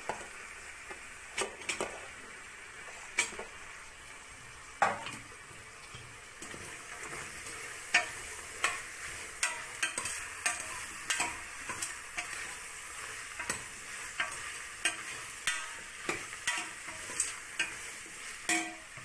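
A steel spoon stirring mushrooms and tomatoes frying in masala in a pressure cooker: a steady sizzle with sharp clicks of the spoon against the pot, a few at first, then about two a second from about halfway.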